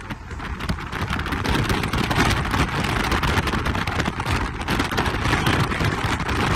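An 8th-generation Honda Civic accelerating hard, heard from inside the cabin: engine, wind and road noise mixed together. It gets louder about a second and a half in and then holds steady.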